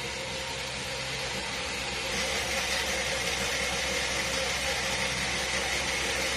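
Countertop blender motor running steadily, churning an orange liquid; the whir grows a little louder about two seconds in.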